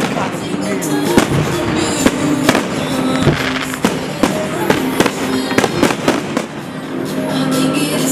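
Aerial fireworks bursting in a rapid, irregular string of bangs, several a second, over loud music.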